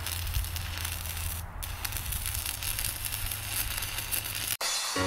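Stick-welding (SMAW) arc from an Amico CTS-180 DC inverter welder, crackling steadily with a low hum as the electrode burns along the steel. It cuts off abruptly about four and a half seconds in and intro music begins.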